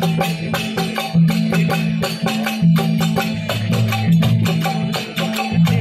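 Instrumental interlude of a Rajasthani desi veena bhajan: harmonium and dholak over a fast, even clatter of wooden hand percussion.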